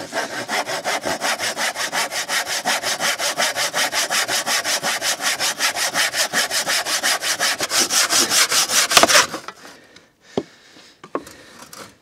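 Hand saw cutting through a weathered wooden pallet board with rapid, even back-and-forth strokes. The sawing stops a little after nine seconds as the cut goes through, followed by a couple of light knocks.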